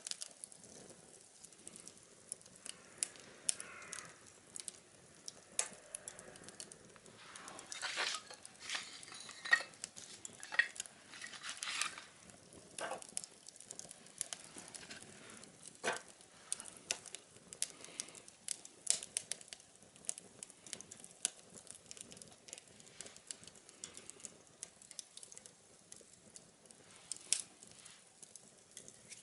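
Small wood fire crackling inside a homemade tin-can stove: irregular sharp pops and ticks over a faint hiss, busiest between about eight and twelve seconds in.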